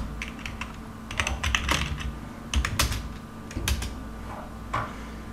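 Computer keyboard typing in short bursts of keystrokes, with pauses between them.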